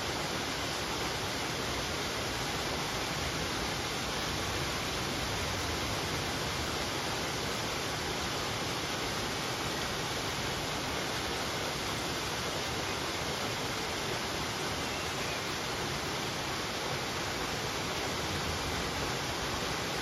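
Small waterfall spilling from a stone arch into a pond: a steady, even rush of falling water.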